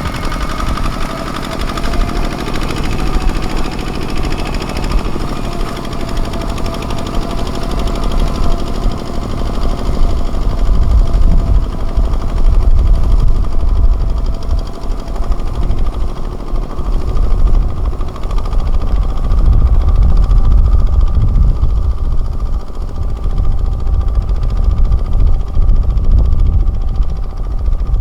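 Kubota ZT155 single-cylinder diesel engine of a mini tractor chugging in rapid, steady beats under ploughing load, with a steady whine above it. It gets louder about a third of the way in.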